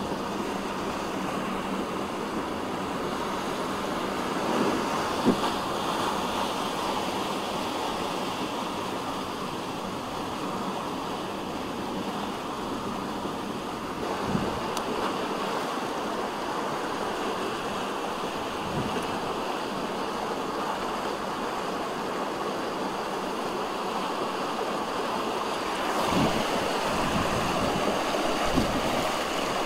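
Steady rushing and sloshing of floodwater as a car drives through a flooded street, heard from inside the cabin, with a few soft thumps.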